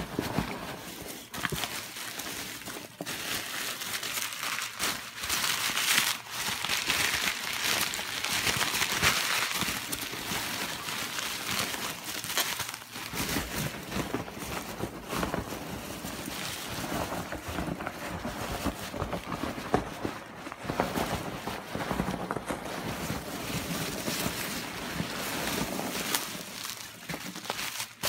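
Bubble wrap, packing peanuts and newspaper rustling and crinkling as hands rummage through a cardboard box of packing material, a steady run of crackles and crinkles.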